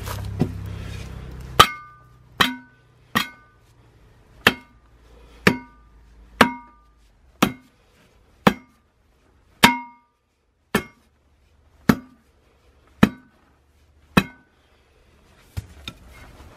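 A steel car wheel rim struck thirteen times, about once a second, each blow a sharp clank that rings briefly at the same few pitches. The blows are being used to free an old, hardened tyre bead that will not separate from the rim.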